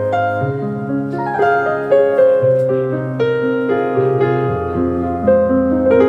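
Instrumental piano music: a melody of changing notes over low bass notes held for a second or two each.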